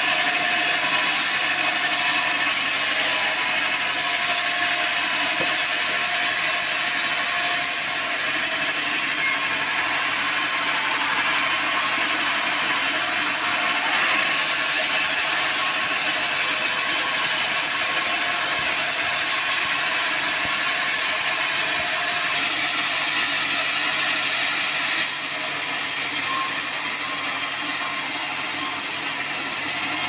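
Band sawmill blade cutting lengthwise through a mahogany log: steady sawing noise of the blade and mill, with a slight change in tone near the end.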